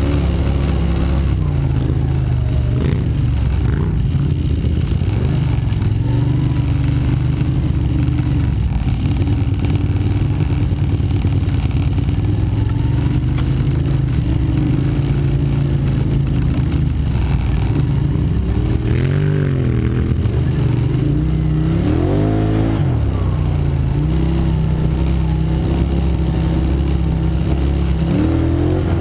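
ATV engine running under way, its pitch rising and falling with the throttle, with quick revs about two-thirds of the way through and again near the end.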